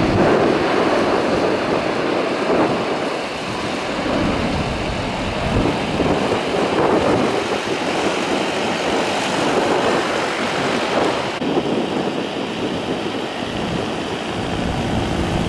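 Boeing 777 airliner's jet engines rumbling loudly as it rolls down the runway after touchdown.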